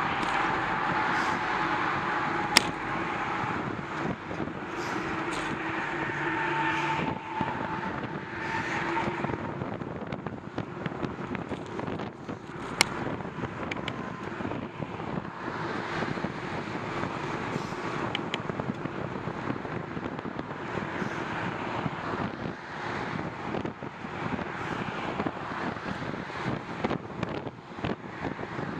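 Road traffic passing on a busy multi-lane road, a steady rush of car tyre and engine noise. A vehicle's hum fades out in the first third, and there are two sharp clicks, one a few seconds in and one near the middle.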